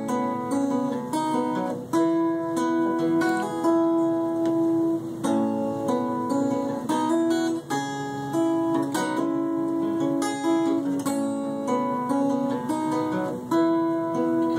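Acoustic guitar played solo, picking notes and chords as the instrumental introduction to a song, with no voice yet.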